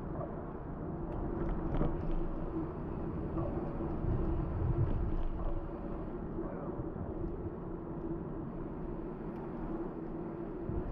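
Bicycle rolling along a paved street: a steady rumble of tyre and wind noise on the microphone, with a few faint clicks.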